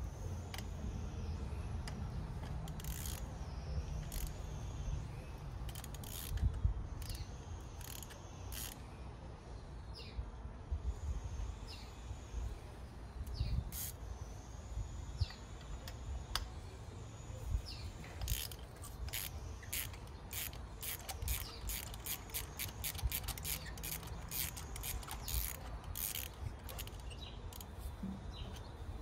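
Hand ratchet clicking as spark plugs are worked out of a Chevrolet Cruze's 1.4 L turbo four-cylinder, with scattered single clicks and tool knocks at first, then a long quick run of ratchet clicks about two-thirds in.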